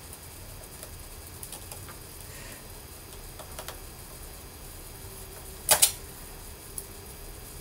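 Small metal clicks and light scratchy ticks of a small screwdriver and screws working on a MacBook Pro's metal bottom cover as the screws are set and turned. The loudest is a sharp double click a little before six seconds in.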